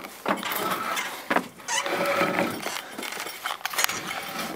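A few sharp knocks and rattles as a railcar's wooden door is worked open, with shuffling footsteps going inside.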